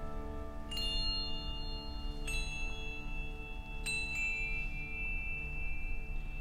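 English handbell choir holding a low sustained chord that pulses slowly, while single high bells are struck about every second and a half, three times, each ringing on over the chord.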